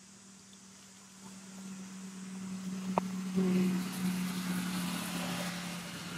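A motor vehicle passing. Its sound builds from about a second in, peaks about halfway, then slowly eases, over a steady low hum. A single sharp click comes about halfway through.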